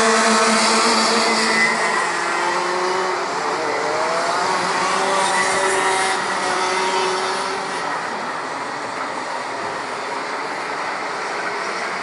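A pack of Rotax Max 125cc two-stroke racing karts running on the circuit, several engines at once. An engine note rises in pitch about three to five seconds in as karts accelerate out of a corner, and the sound eases a little after about eight seconds.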